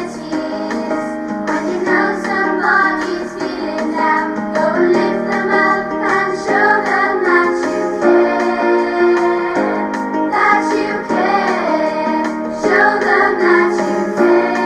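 A song with children singing over a piano or keyboard accompaniment.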